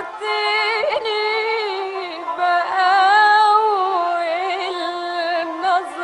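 Old recording of a classical Egyptian Arabic song: a woman singing long, ornamented phrases with vibrato over a sustained accompanying ensemble.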